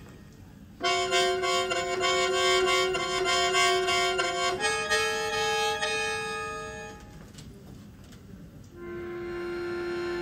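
Solo bayan (Russian button accordion) playing. After a brief pause it sounds a held chord with fast repeated notes, then a second held chord that fades away, then a long low note that swells louder near the end.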